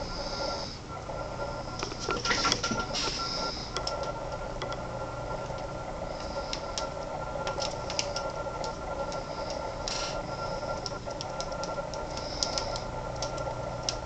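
Cockatiels pecking and working at knots on a wooden play stand: scattered light clicks and taps, with a louder cluster a couple of seconds in and a few short high calls, over a steady background hum.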